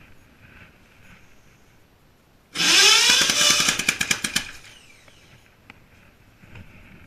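1917 Emblem motorcycle engine catching about two and a half seconds in and revving up, then dying out over about two seconds in a string of separate, slowing firing pops: a start attempt that does not keep running.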